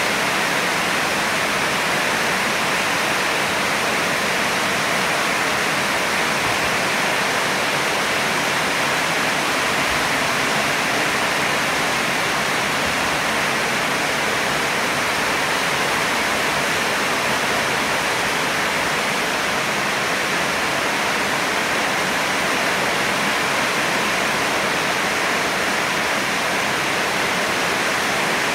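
Heavy rain falling, a steady, even hiss that does not change.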